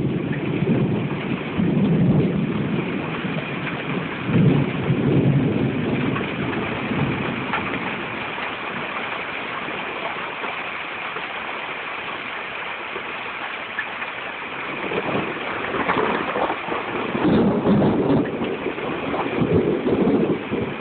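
Thunderstorm: a steady rain hiss with thunder rumbling in several rolling waves, strongest near the start and again over the last few seconds.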